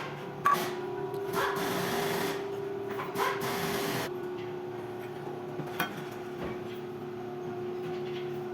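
A steady mechanical hum with two stretches of hissing in the first half and a few sharp clicks.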